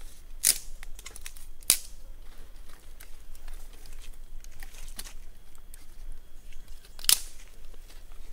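Dry sticks cracking and snapping as they are handled and laid onto a freshly lit kindling fire, with small crackles in between. Three sharp cracks stand out: about half a second in, just before two seconds, and about seven seconds in.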